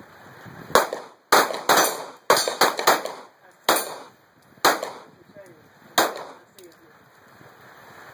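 Handgun fire from several shooters: about ten sharp pistol shots in an irregular string, some in quick succession, the last one about six seconds in.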